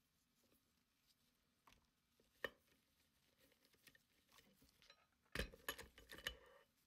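Faint metal handling clicks from a disc detainer padlock, pick and vise: one sharp click, then about a second of clicking and rattling near the end.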